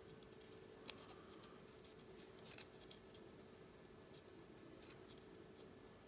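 Near silence: room tone with a few faint, short clicks.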